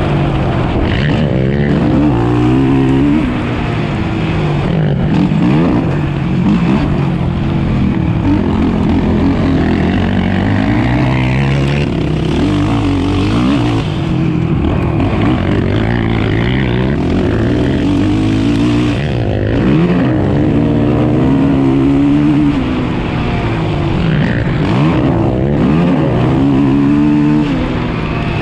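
450 cc single-cylinder four-stroke race quad engine heard close up from on board, revving hard and rising in pitch, then dropping back off the throttle, over and over as it is ridden around the track.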